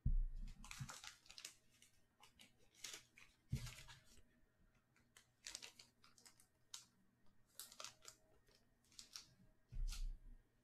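Plastic wrapping crinkling and tearing in short irregular bursts, with dull thumps at the start, about three and a half seconds in and near the end, as a sealed box of trading cards is handled and unwrapped.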